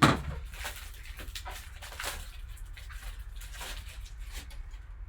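Hands handling trading cards and their packaging on a table: a sharp knock, then a run of short scratchy clicks and rustles.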